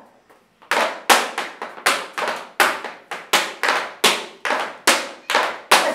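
Flamenco palmas: sharp hand claps at a steady pace of about three a second, keeping the bulería rhythm. They start about a second in.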